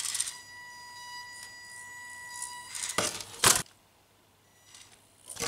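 A micro RC crawler's small electric motor whines steadily at a high pitch as the Carisma MSA-1E Subaru Brat works on a 49-degree smooth ramp, a slope too steep for it. About three seconds in there are two loud, brief noises.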